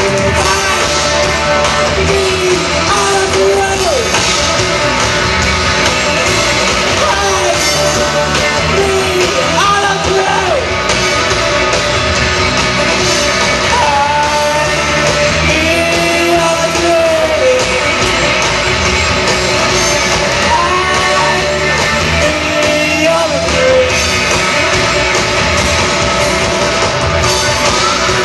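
A band playing a song live, with a singer's voice over dense, loud, continuous music.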